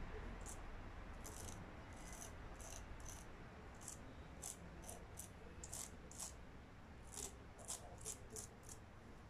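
Palette knife scraping relief paste across a plastic stencil in short, irregular strokes, faint over a low steady hum.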